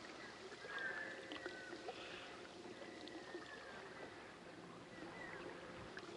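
Faint sounds of a kayak on a river: soft water lapping and a few small knocks against the hull.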